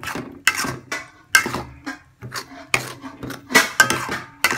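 A spatula stirring thick sambal in a metal wok, scraping and clacking against the pan in quick, irregular strokes.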